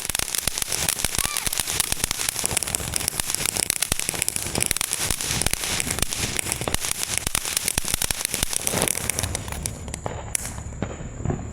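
Ground firework going off with a dense, rapid crackle of small pops, with a short rising whistle about a second in. The crackling dies down near the end.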